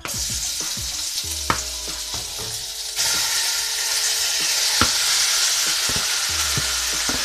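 Floured beef stew meat sizzling as it is tipped into hot oil in a stir-fry pan to brown. The sizzle gets louder about three seconds in as the bulk of the meat drops into the pan, with a few knocks of pieces landing.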